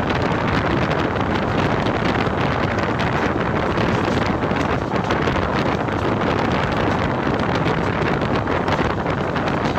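Wind rushing over the microphone from outside a passenger train running at speed, mixed with the train's steady running noise. The rush stays loud and even throughout.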